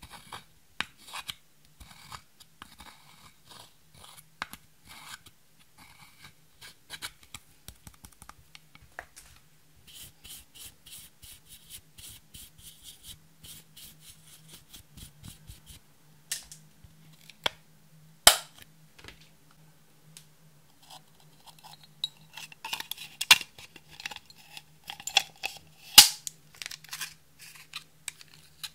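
A pointed tool scraping and picking pressed eyeshadow out of a plastic compact, the powder crumbling into a glass dish with many small clicks and scratches. There is a stretch of rapid scraping, and a few sharp clicks, the loudest about 18 seconds in. A faint steady low hum runs underneath.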